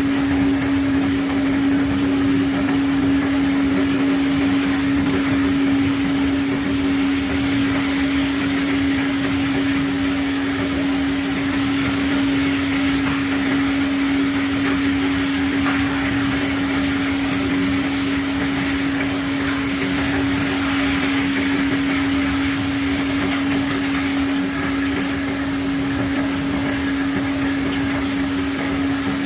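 Unloading machinery on a sand ship running steadily: a constant hum with an even hiss of noise over it.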